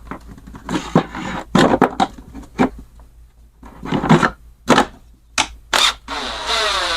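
Hard plastic and metal clicks and knocks as the recoil starter assembly is fitted onto a Stihl MS590C chainsaw, about eight separate sharp knocks. A steadier sound lasting about a second follows near the end.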